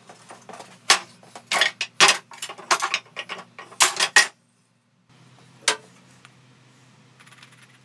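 Wooden offcuts clattering against each other and a plastic crate as pieces are rummaged and lifted out: a quick run of sharp wooden knocks. After a brief gap, one more knock as a block is set down on the bandsaw table.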